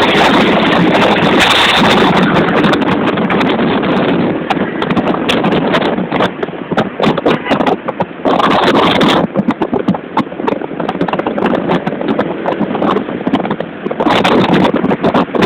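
Road noise from moving vehicles: a dense, loud din full of rapid crackling, steady for the first six seconds or so, then rising and dipping.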